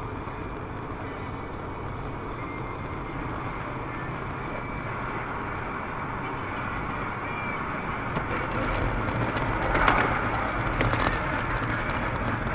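Steady road noise of a moving vehicle, slowly getting louder, with a short louder burst of clatter about ten seconds in.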